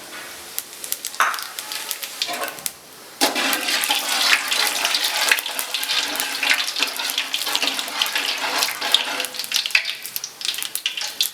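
Fennel seeds frying in hot oil in a large pan, sizzling and crackling; the sizzle comes in suddenly and loud about three seconds in, as the seeds hit the oil and start to pop.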